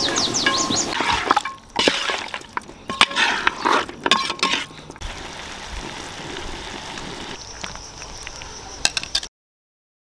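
A run of sharp clinks and knocks of metal cooking utensils against a large pot over the first few seconds, then quieter handling with a few last clicks. The sound then cuts off to silence near the end.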